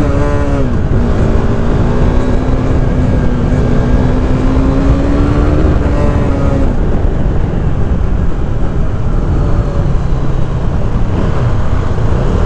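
KTM RC390's single-cylinder engine under way on a ride, with heavy wind rush. The engine note dips right at the start, climbs slowly for several seconds, then drops away about halfway through, leaving mostly wind noise.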